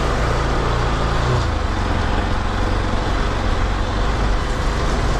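Motorcycle running steadily along a rough road, its engine mixed with road and wind noise.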